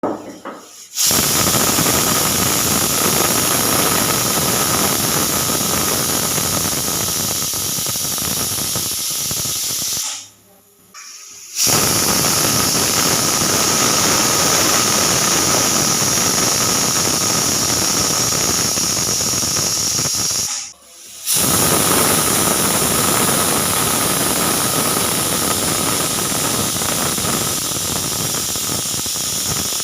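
Pressure cooker whistle blowing: steam hissing out of the weight valve with a faint steady shrill tone, in three long blasts broken by short gaps about ten and twenty-one seconds in.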